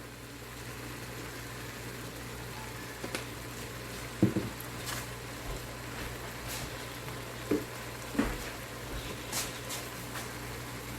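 Ground meat frying softly in an Instant Pot, a steady low sizzle with a few light knocks and clicks scattered through it.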